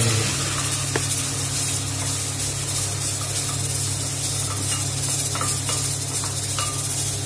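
Chopped red onion sizzling as it goes into hot oil in a pot and is stirred with a wooden spoon: a steady hiss with a few light knocks of the spoon against the pot.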